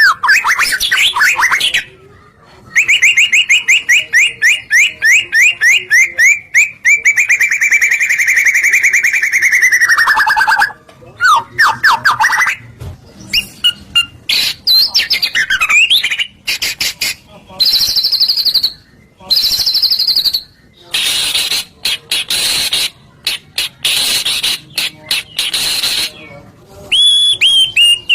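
Songbird lure recording: a bird sings loud, fast trills of rapidly repeated notes, then breaks into shorter sharp whistled notes and harsh chattering phrases with brief pauses. It is the kind of song played to kept songbirds to make them answer.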